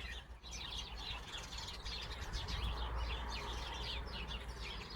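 A flock of small songbirds chirping in the trees: many rapid, overlapping high chirps, thickening about half a second in.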